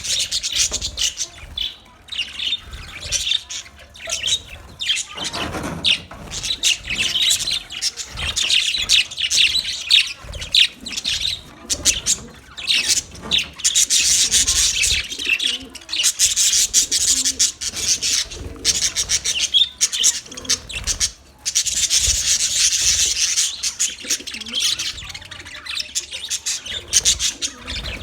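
A colony of budgerigars chirping and chattering, many birds at once in a dense, continuous twitter.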